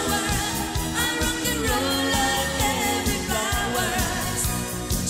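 A woman singing a pop song into a microphone over full band backing with a steady drum beat; her held notes waver with vibrato.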